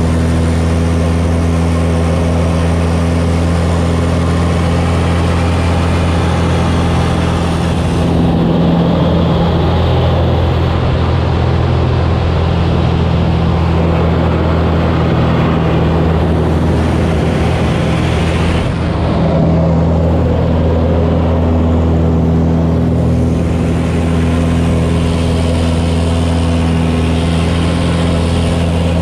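Piston engine and propeller of a DR-107 One Design aerobatic plane running at high power, heard loud and close from on board. The steady drone shifts in pitch twice, once about a third of the way through and briefly again about two-thirds through.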